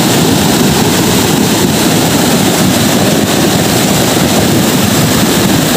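Heavy rain pouring down: a loud, steady rush of downpour noise with no break.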